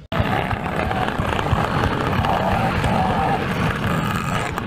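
Steady vehicle engine noise that cuts in suddenly and runs evenly without breaks.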